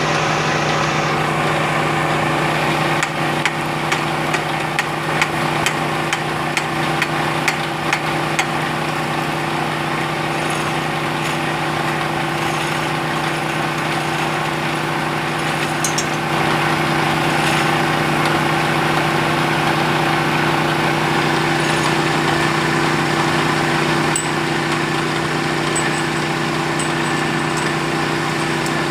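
Engine of a bore-well drilling machine running steadily at one constant speed. Scattered sharp knocks fall in the first third, and a few light ticks come near the end.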